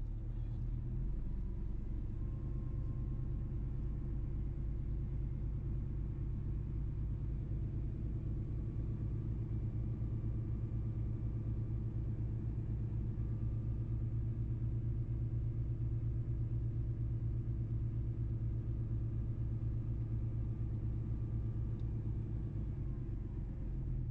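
Mercedes-Benz truck's diesel engine running steadily under way, a low drone with a fine pulse. Its pitch shifts slightly about a second in and falls away near the end as the engine slows.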